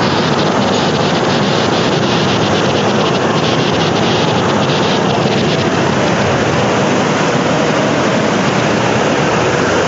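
Storm wind and heavy rain making a loud, steady noise, with wind buffeting the microphone.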